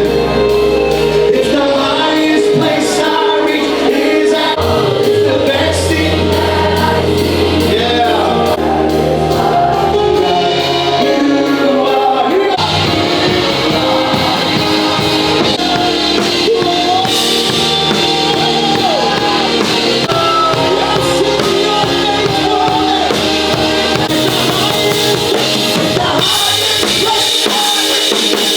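A worship song played by a band, with singing and a drum kit.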